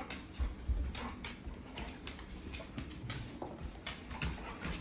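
A golden retriever's claws clicking and tapping irregularly on a tile floor as it moves about.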